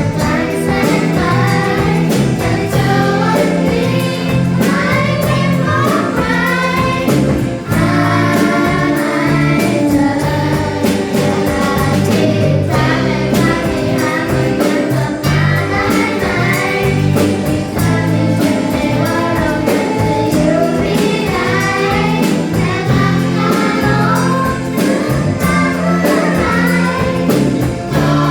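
A pop song plays: a sung melody with wavering, sliding pitch in phrases over a full backing band, with sustained bass notes underneath.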